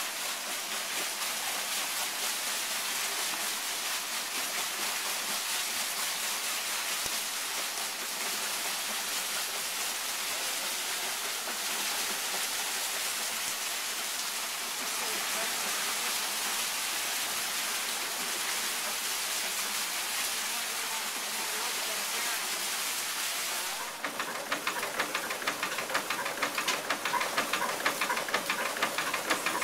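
Water pouring from a flume onto a wooden overshot waterwheel and splashing off its buckets: a steady rush. About 24 seconds in, the gristmill's machinery running indoors takes over, a fast, even, rhythmic clatter.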